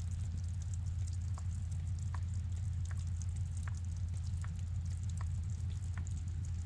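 Water dripping from icicles and wet moss on a seeping rock face: single clear plinks at an even pace, about one every three-quarters of a second, over a steady low rumble.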